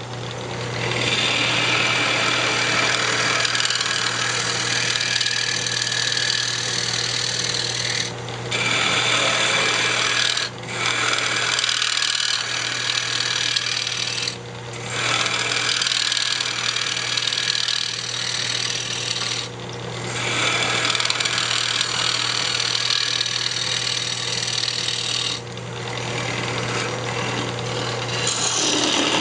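A turning tool cutting a spinning cherry blank on a wood lathe, over the lathe's steady motor hum. The cutting noise drops out briefly about five times and then resumes.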